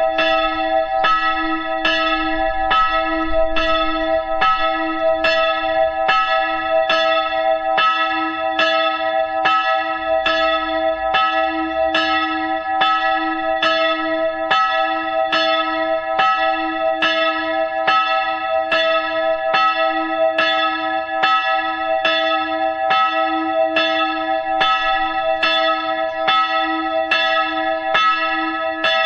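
Church bells ringing in a steady, even rhythm of strokes, each tone ringing on into the next.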